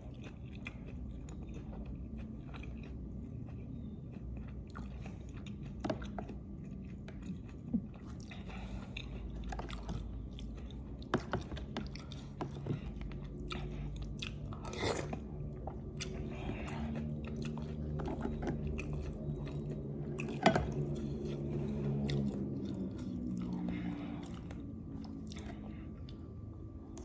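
Close-miked chewing and biting of lontong with green chilli: wet mouth sounds with scattered sharp clicks and crunches. A low hum runs through the second half.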